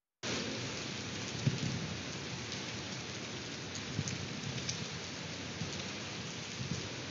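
Heavy rain pouring onto wet paving and parked cars, a steady hiss that begins abruptly just after the start, with a brief low thump about a second and a half in and another fainter one near the middle.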